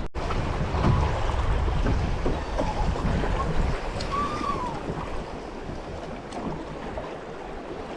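River water rushing along a drifting boat, with wind buffeting the microphone, heaviest in the first few seconds.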